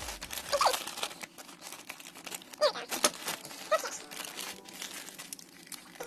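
Plastic or paper packaging crinkling and tearing as a parcel is unwrapped by hand, with many small crackles. A few short, high, rising chirps sound over it.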